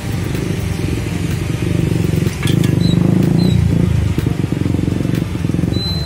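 A low, steady motor hum with a fast pulse, louder from about two seconds in, with a few light metal clinks of a ladle against the wok.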